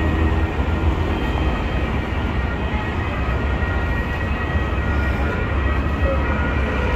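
Busy city street at night: a steady low rumble of passing road traffic under a general street hum, with faint steady high tones above it.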